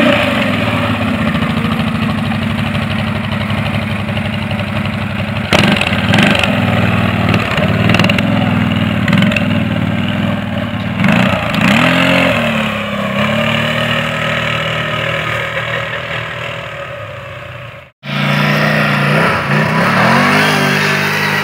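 ATV engines running and revving under load as the quads push through tall grass and brush, with a few knocks along the way. The sound cuts out for a moment near the end, then engine sound resumes.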